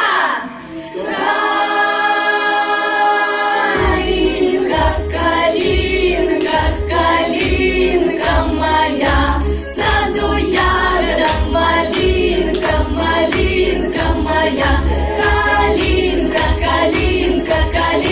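Female vocal ensemble singing into microphones, opening on a long held chord; about four seconds in, a backing track with bass and a steady beat comes in and the singing carries on over it.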